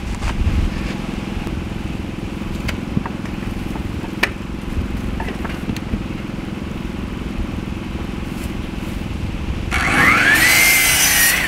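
Scattered knocks over a steady low rumble, then about ten seconds in a power tool's motor whines up and runs for about a second and a half.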